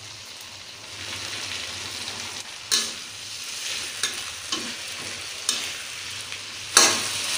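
Chilies, shallots, herbs and tauco (fermented soybean paste) sizzling in oil in a wok, stirred with a metal spatula that scrapes and clacks against the pan several times, the loudest clack near the end.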